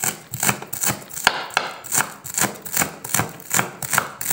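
A chef's knife chopping dill on a wooden cutting board, with even strokes at about three a second.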